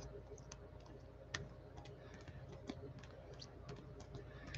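Faint, scattered clicks and ticks of plastic-sleeved trading cards being flipped through one by one in a stack.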